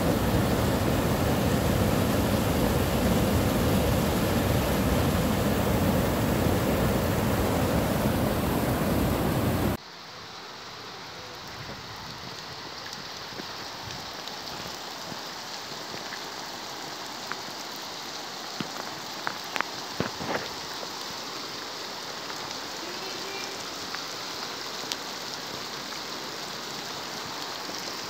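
Water overflowing a concrete dam spillway into churning white water, a loud steady rush. About ten seconds in it cuts off to heavy rain falling, quieter and even, with a few sharp knocks a little later.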